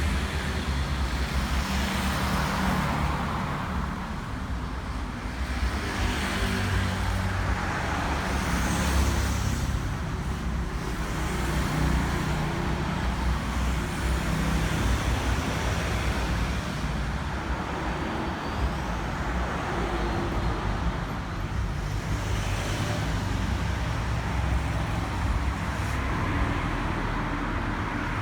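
Road vehicle noise: a low engine rumble with tyre and traffic noise that swells and fades every few seconds.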